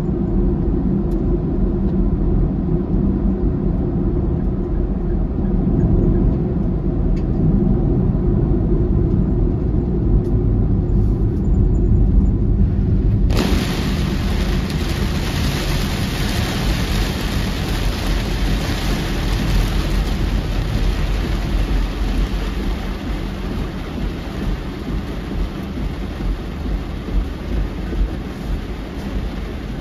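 A low, steady rumble of tyre and road noise heard inside a car driving through a tunnel, then, abruptly about 13 s in, heavy rain drumming on the car's roof and windshield as a dense hiss in a torrential downpour, with a regular pulse about once a second near the end.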